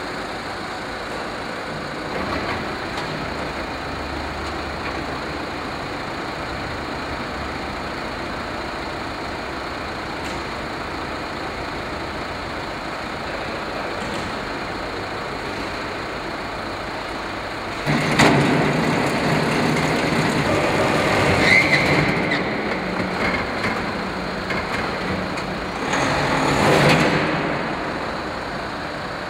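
Steady workshop noise, then about two-thirds of the way through a roller brake tester starts up suddenly: its electric motors turn the rollers under the car's front wheels with a low hum and rumble. A short high squeal follows, then the sound swells again and dies away as the front brakes are tested.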